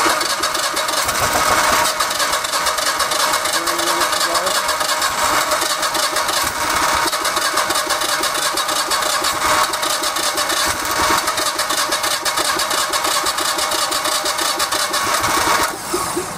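The electric starter cranks the propane-converted Generac GP15000E generator's V-twin engine for about sixteen seconds with an even, fast pulse, then stops just before the end. The engine does not catch: she's fussy while the propane mixture at the load block is still being tuned.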